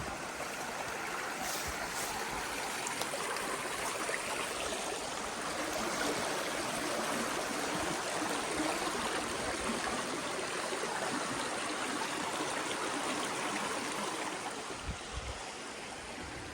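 A stream flowing: a steady rush of running water, a little louder mid-way, with a few soft low bumps near the end.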